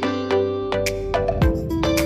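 Background music: a plucked, bright melody over a bass line, with notes changing every few tenths of a second.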